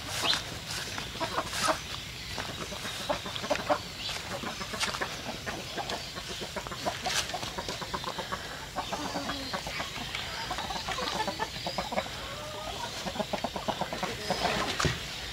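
Domestic chickens clucking, with footsteps crunching over dry leaves and twigs.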